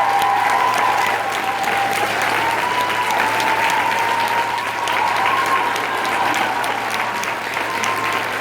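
Audience clapping steadily, with a held, slightly wavering tone running through it.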